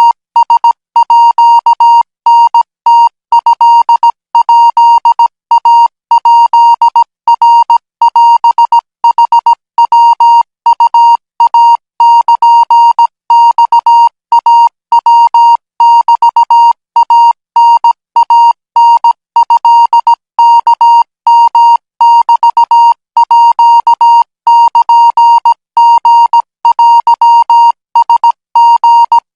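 Thai Morse code practice signal sent at 20 words per minute: one steady electronic beep keyed on and off in short dots and longer dashes, with brief gaps between characters.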